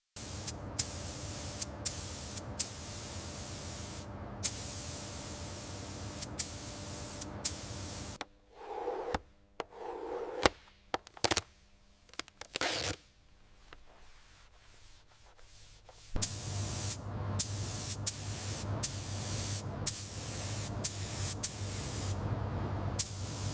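Spray hissing in long bursts broken by brief pauses, over a low hum. In the middle stretch the spray stops, and a few sharp knocks and two short rising tones are heard before the spraying resumes.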